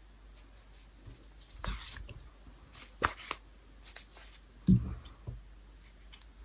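Small handling noises of hands working a yarn tail into crocheted work with a sewing needle: a brief rustle, a couple of sharp clicks, and a low thump just under five seconds in.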